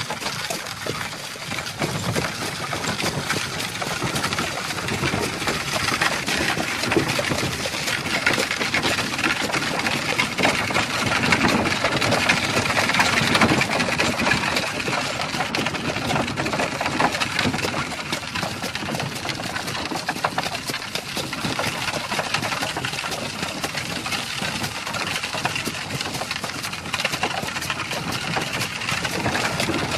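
A horse-drawn cart on the move: a continuous clatter of hooves and the rattle of the cart's wheels and fittings, a little louder around the middle.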